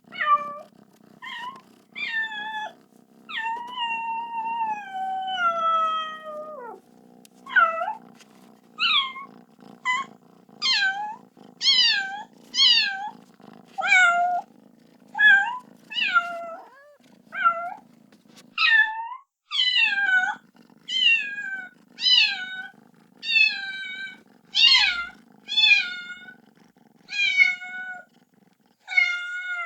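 Kitten meowing over and over, about one high-pitched call a second, each falling in pitch, with one long drawn-out meow a few seconds in: a kitten crying for its mother.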